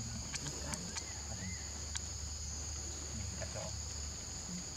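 Steady, high-pitched insect chorus droning without a break, with a few faint clicks and one short chirp about a second and a half in.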